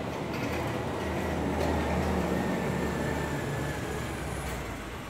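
A steady low rumble that swells around two seconds in and eases toward the end, with a faint thin whine above it. Under it come light rustles and a few soft clicks of hands working through a coarse potting mix of pine bark, rice hulls, soil and sand.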